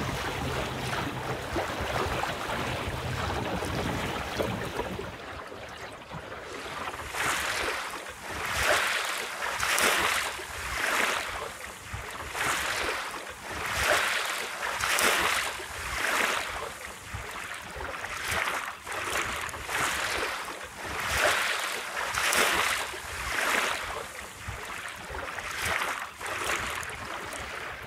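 Water washing against the hull of a small sailboat moving under sail in a light breeze, with a steady hiss at first and then regular surges of wash, a little over one a second, from about seven seconds in.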